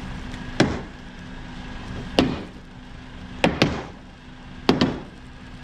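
Heavy hammer blows driving a heated iron ring onto a wooden mast: about six sharp strikes, spaced a second or more apart, the last four in two quick pairs.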